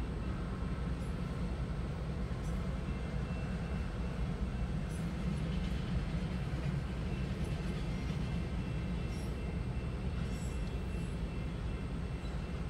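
Freight train of autorack cars rolling past over a road crossing: a steady, even rumble of wheels on rail with a few faint clicks, heard from inside a waiting car.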